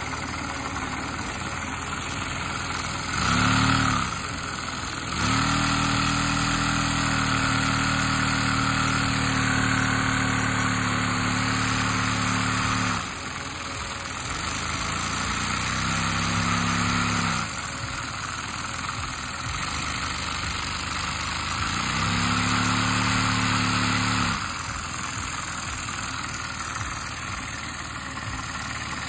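A LEGO vacuum engine running on the suction of a household vacuum cleaner while water is poured down its valve. The engine revs down a little as the water goes in. A lower humming tone comes and goes four times, the longest stretch lasting about eight seconds.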